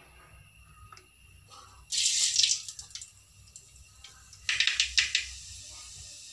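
Mustard seeds dropped into hot oil, sizzling and crackling as they splutter. A loud burst of sizzle comes about two seconds in and fades within a second, and a second crackling burst follows about four and a half seconds in.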